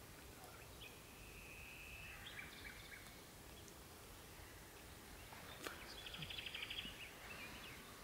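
Nightingale singing faintly: a long, steady, high whistled note about a second in, a few short notes after it, and near the end a fast rattling run of repeated notes. A low background rumble sits under the song throughout.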